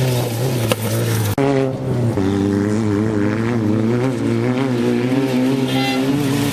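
Off-road race vehicle's engine running at fairly steady revs, its pitch wavering slightly up and down, with a brief break about a second and a half in.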